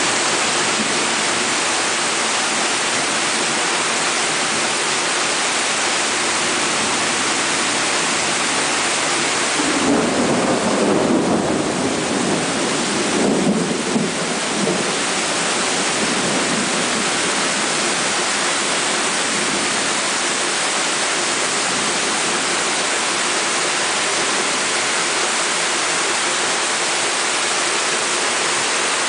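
Heavy rain falling steadily in a thunderstorm. About ten seconds in, a roll of thunder rumbles for several seconds and fades.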